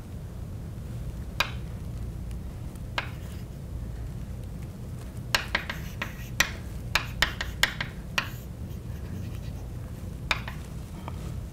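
Chalk tapping and scratching on a blackboard while drawing: a few scattered sharp taps, a quick run of taps in the middle, and more near the end, over a steady low hum.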